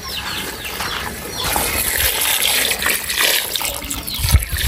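Water being poured into a cooking pot of mangoes, a steady splashing pour that swells about a second and a half in.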